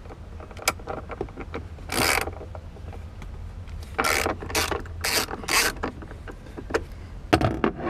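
Ratchet with a 13 mm socket loosening a bolt: one ratcheting stroke about two seconds in, then four quick strokes in a row between about four and six seconds in.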